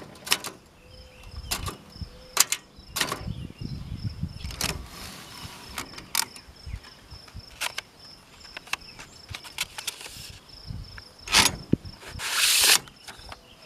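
Brother JP-1 manual typewriter (Sears-labelled) being typed slowly: single key strikes spaced a second or so apart, with a metallic rattle from the thin metal table it stands on. Near the end comes a louder rasping sweep about half a second long, the carriage being returned.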